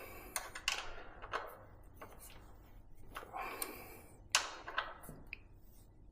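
Irregular metallic clicks and taps of hand tools working on an e-bike's rear mechanical disc brake while its cable tension is adjusted, some with a brief ring; the loudest comes a little over four seconds in.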